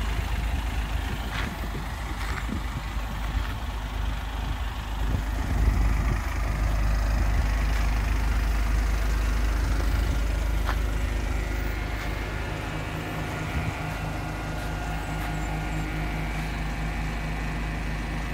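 Suzuki Multicab's K6A 658 cc three-cylinder engine idling steadily.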